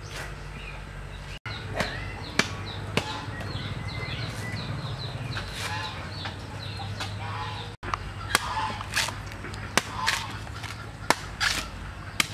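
Machete chopping green coconuts, a run of sharp strikes that come thickest in the last few seconds. Poultry clucking and small birds chirping in the background.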